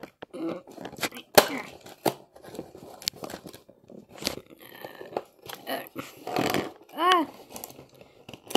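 Small cardboard LEGO box being handled and torn open at its perforated tab: irregular scraping, crinkling and sharp clicks of the cardboard. A brief tone that rises and falls comes about seven seconds in.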